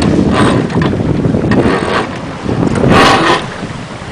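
Wind buffeting the microphone aboard a sailing yacht under way, with the rush of water along the hull. The hiss swells three times.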